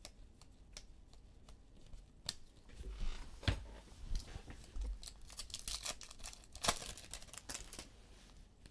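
Trading cards and their packaging being handled at a table: scattered light clicks with short rustling scrapes, the louder ones bunched in the middle.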